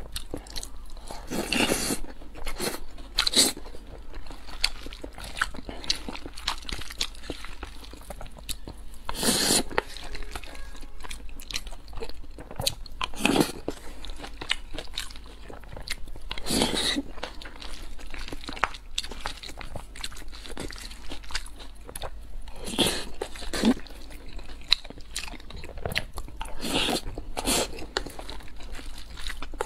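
Close-miked eating sounds of a person chewing a mouthful of mapo tofu and rice, with a sharper wet mouth sound every few seconds over steadier chewing.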